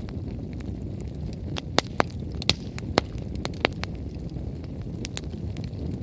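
Wood bonfire burning, a steady low rumble of flames with sharp, irregular pops and crackles from the burning logs, the loudest pops bunched in the middle.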